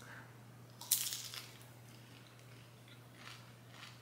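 A bite into a slice of soft cookie topped with potato chips, pickles and bacon: one sharp crunch about a second in, then a few faint chewing crunches.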